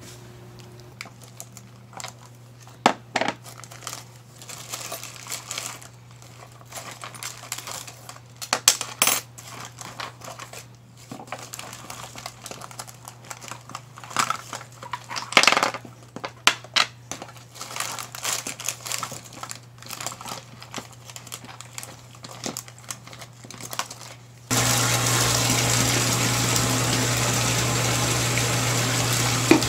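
Hands rummaging through a zippered cosmetics pouch: small items clicking against each other and plastic crinkling in scattered bursts. About 25 seconds in, a tap starts running steadily into a plastic basin as it fills with soapy foam.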